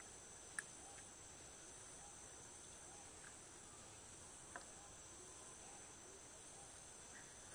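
Faint, steady high-pitched drone of rainforest insects, with two light clicks, one about half a second in and one about four and a half seconds in.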